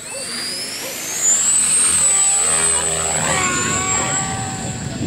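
Mikado Logo 400 electric RC helicopter flying: a high-pitched motor and gear whine that rises in pitch over the first two seconds and then holds steady, with the rotor noise getting louder about a second in.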